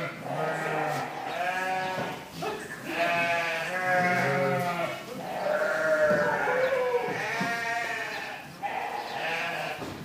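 A herd of goats bleating, with many loud overlapping calls one after another.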